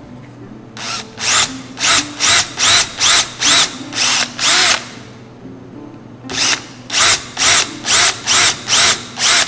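Cordless drill run in short trigger bursts, about two a second, each spinning up and back down, while boring clearance holes for screws through a small block of wood. Two runs of bursts with a pause of about a second and a half between them.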